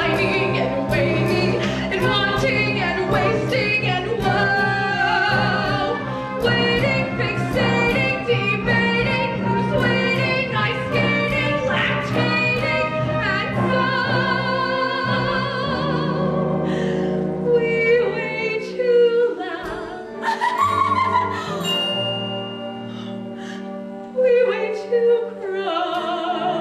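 A woman sings a stage-musical number with instrumental accompaniment. The accompaniment is full and rhythmic for a little over half the time, then thins out to held notes under the voice.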